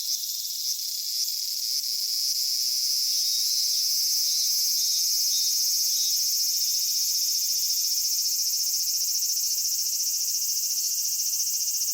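Cicadas singing in chorus: a dense, high, steady buzz, with short pulsed notes in the first couple of seconds that merge into a continuous drone.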